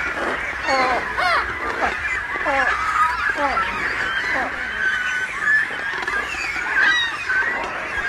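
A flock of water birds calling, many short falling calls overlapping one another in quick succession.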